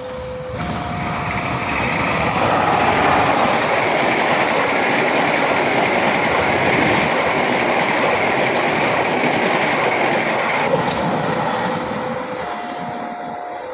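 A train passing at speed: a loud, steady rushing rumble that swells about half a second in and fades from about eleven seconds. A two-tone warning alarm, alternating between a low and a higher tone, sounds around it and shows through near the start and the end.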